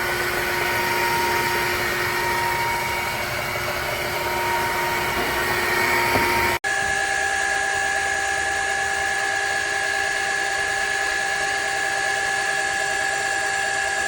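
Shark HydroVac MessMaster cordless wet-dry vacuum mop running with a steady motor whine. It breaks off for an instant about six and a half seconds in, then runs on at a different pitch.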